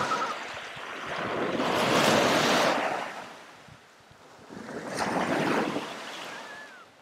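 Small waves breaking and washing up a pebbly beach: the surf swells, dies away almost to quiet, then swells again about three seconds later.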